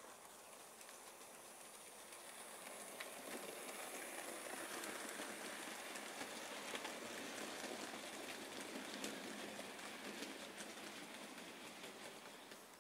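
Model train of loaded coal wagons hauled by a Bachmann LNER O4 model locomotive, rolling past on the layout's track. The wheels make a steady rolling rattle with scattered sharp clicks; it builds to its loudest mid-way as the train passes close and fades toward the end.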